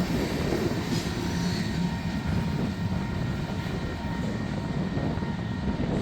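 Manifest freight train rolling past with a steady rumble.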